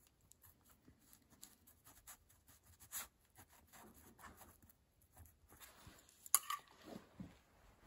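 Ballpoint pen writing on a paper legal pad: faint scratching strokes with a few light ticks. The writing stops around six seconds in, followed by a light knock.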